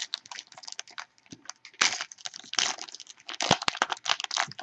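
A trading card pack wrapper being torn open and crinkled, with irregular crackles and rustles that grow louder about two seconds in.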